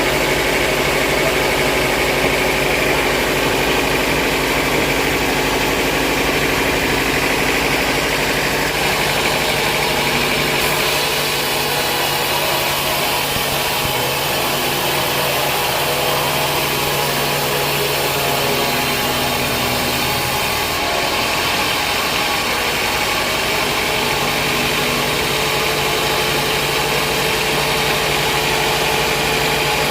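Large vertical band saw mill running steadily, a loud machine drone with several steady tones. The sound changes slightly about ten seconds in and again about twenty seconds in.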